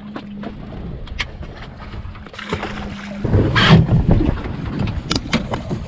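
Wind and water noise on an offshore fishing boat over a steady low hum. About three seconds in, a loud rush of wind buffeting and handling noise hits the microphone as it swings over the side, then rougher noise continues.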